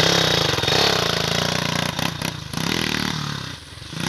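Yamaha Warrior 350 ATV's single-cylinder four-stroke engine running close by, with a few knocks around two seconds in. The engine sound drops briefly near the end, then picks up again.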